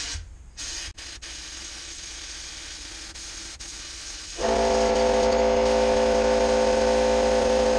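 JobSmart benchtop sandblast cabinet blasting: a steady hiss of compressed air and abrasive through the gun, with a couple of clicks about a second in. About four and a half seconds in, an air compressor kicks on with a loud, steady, humming drone that covers the hiss.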